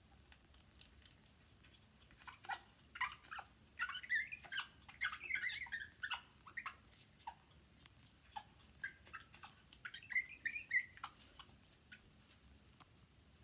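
African grey parrot making soft, short chirps, squeaks and clicks in two bouts, the first starting about two seconds in and the second a little after the middle.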